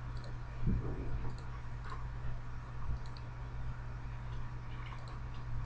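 A few scattered, faint computer mouse clicks over a steady low electrical hum.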